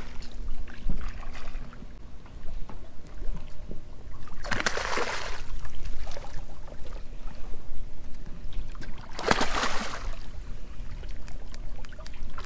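A hooked fish thrashing at the water's surface: two splashes, each about a second long, about four and a half and nine seconds in, over a steady low rumble.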